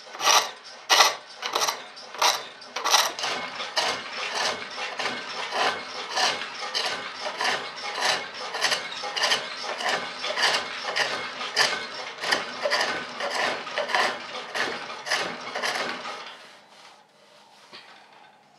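A turning tool cutting a wooden leg blank on a spring pole lathe, taking the octagon down to a round cylinder: rhythmic scraping cuts about two a second as the pole spins the work back and forth, stopping about two seconds before the end.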